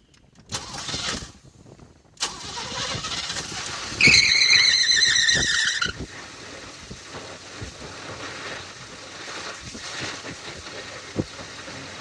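Oldsmobile 307 V8 being cranked and starting, with a loud high-pitched squeal for about two seconds soon after it fires, then settling into a steady idle.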